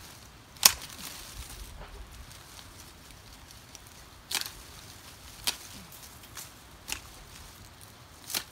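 Branches being cut while a tree is pruned: about five sharp snaps at uneven spacing, the first, just over half a second in, the loudest.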